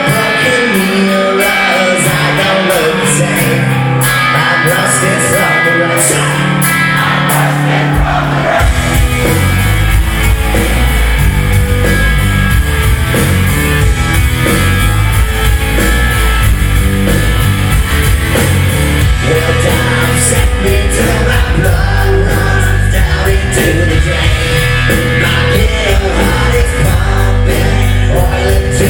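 Rock band playing live with a singer. The guitars and vocals carry the first part, then the bass and drums come in heavily about eight seconds in.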